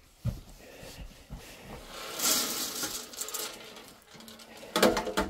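Handling noises on a straw-littered coop floor: a few soft knocks, a rustling hiss about two seconds in, and a sharp clinking clatter near the end.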